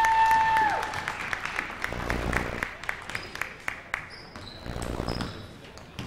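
Basketball gym sounds: a steady held tone, like a scoreboard horn, cuts off about a second in. Scattered clapping and the knocks of a bouncing basketball follow.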